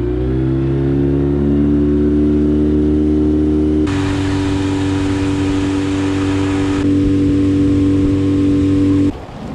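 A small skiff's outboard motor speeds up, climbing in pitch, then holds a steady high throttle with the boat running fast. A hiss joins in for a few seconds midway. About nine seconds in, the motor is throttled back abruptly.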